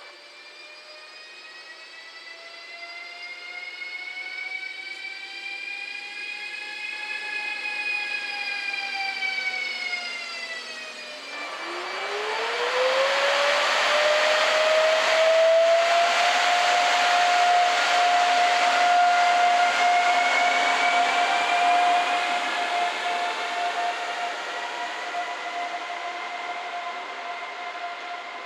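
SBB Cargo E474 (Re 474) electric freight locomotive pulling away from a stop, its traction converters giving a high electric whine. The whine's pitch rises, dips, then climbs about ten seconds in and holds steady. The noise of the passing locomotive and wagons is loudest around the middle.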